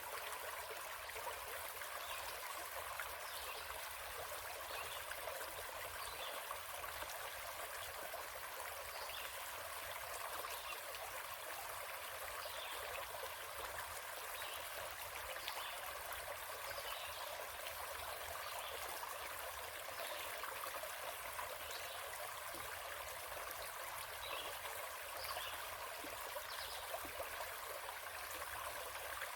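Small stream flowing steadily, an even rush of running water.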